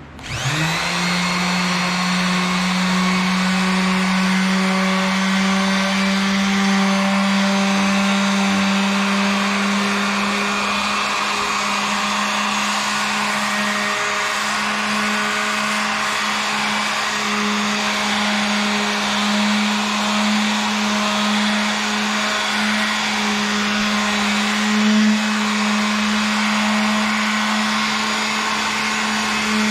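WEN electric detail sander spinning up and then running steadily, sanding a wooden tool handle with a 220-grit pad.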